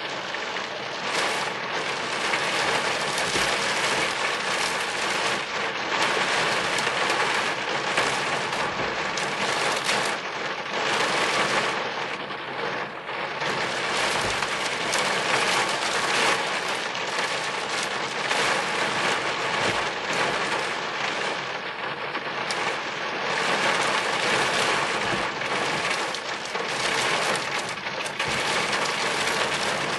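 Heavy rain pattering steadily on a car's roof and windscreen, heard from inside the car, with a dense hiss of many individual drop hits.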